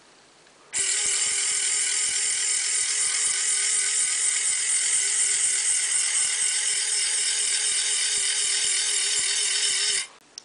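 Small N20 gear motor driving a lead-screw mechanism under load, lifting an RC excavator boom. It gives a steady high whine with a fine rattle, starts about a second in and cuts off near the end.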